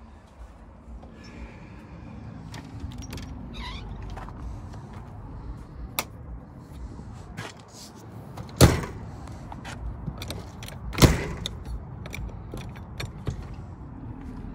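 Fiberglass camper's entry door being handled: latch clicks and knocks, with two loud bangs about two and a half seconds apart as the door is opened and shut.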